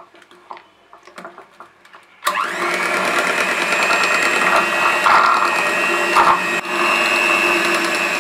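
Electric hand mixer switched on about two seconds in, then running steadily as its twin beaters whip butter and powdered sugar into buttercream frosting.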